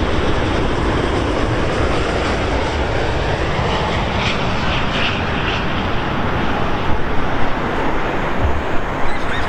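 Boeing 787-8 airliner on final approach passing low overhead, its Rolls-Royce Trent 1000 turbofans giving a steady, loud jet rumble and hiss.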